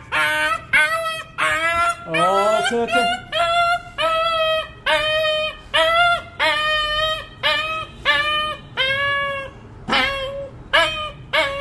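Young dog crying out in pain in a rapid string of high-pitched yelps, a little under two a second, while its injured leg is held and splinted.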